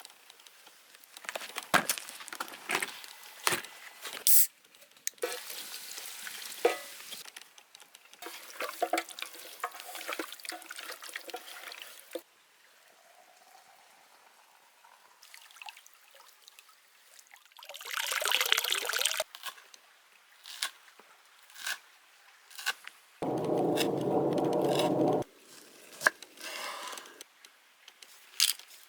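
Food being prepared by hand for cooking: a run of clicks and knocks, stretches of rustling, and about 18 seconds in a rush of liquid being poured. About 23 seconds in comes a steady two-second sound with a dull tone, then more scattered clicks.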